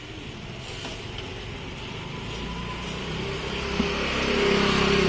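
Street traffic noise with a motor vehicle's engine growing louder about four seconds in, as it passes close by.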